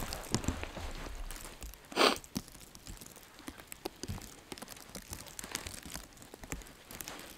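Boots shifting and crunching in snow with light rustling, as scattered small crunches and one louder crunch about two seconds in.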